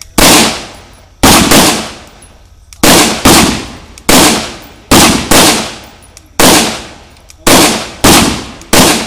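Rifle gunfire: about a dozen sharp shots in an uneven rhythm, several in quick pairs under half a second apart, each ringing out for about half a second.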